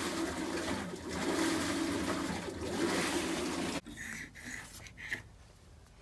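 Maytag top-load washing machine running with water rushing through it, a steady loud rush over an uneven low hum that cuts off abruptly about four seconds in. A few faint short tones follow.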